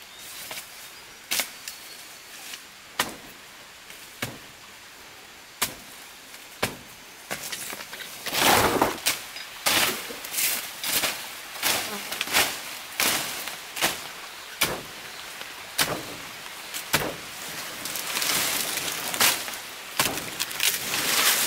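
Machete chopping at undergrowth: sharp single strikes about every second and a half at first, then quicker strikes, about two a second, mixed with leaves and stems rustling from a little over a third of the way in.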